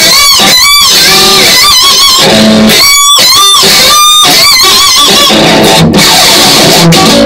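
Les Paul electric guitar played loud, a lead line with many notes bent up and down in pitch. It stops abruptly at the end.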